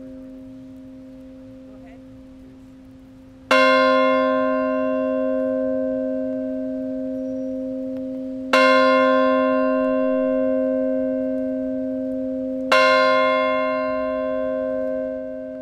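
A large church bell tolled slowly by hand with a long-handled striker. Three strikes come four to five seconds apart, each ringing with many overtones and fading slowly, over the dying ring of the strike before.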